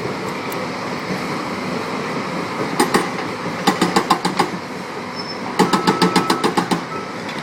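Cat 320C excavator running steadily while its hydraulic breaker hammer strikes in short bursts of rapid blows, about nine a second: a brief burst about three seconds in, then two longer runs, the last the loudest.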